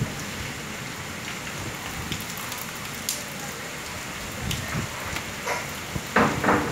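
Steady rain falling, with scattered sharper drop ticks and a few louder bursts near the end.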